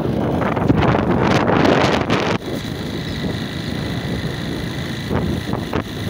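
Wind rushing over the microphone of a moving motorcycle, with the motorcycle's engine running underneath. The buffeting is loudest for about the first two and a half seconds, then drops to a steadier rush.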